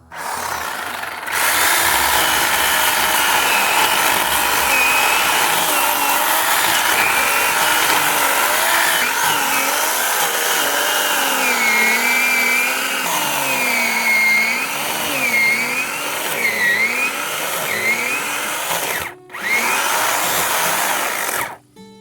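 Chainsaw cutting through wood, its engine pitch dipping and recovering as the chain bites under load. It breaks off briefly near the end, runs again, then stops.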